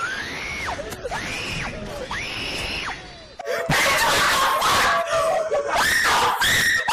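Screaming sound effect: three long screams in a row, each rising in pitch, holding, then dropping away. About three and a half seconds in, a louder, harsher stretch of screaming follows.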